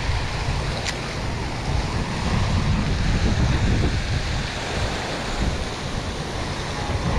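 Wind buffeting the microphone over the steady rushing splash of fountains in a pond.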